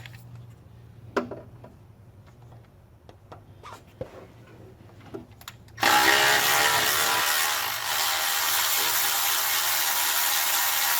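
A few light knocks, then about six seconds in a Milwaukee 12-volt cordless ratchet starts and runs steadily with a whirring hum, spinning a water pump bolt out.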